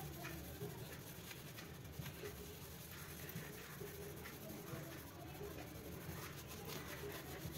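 Faint rubbing and scraping of a cloth scrubbed back and forth over glazed ceramic wall tiles, working paint stains off with thinner.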